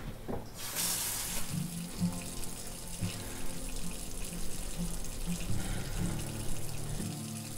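Kitchen tap running, water pouring into a sink or glass: a loud hiss opens it about a second in, then it runs on steadily, over quiet background music.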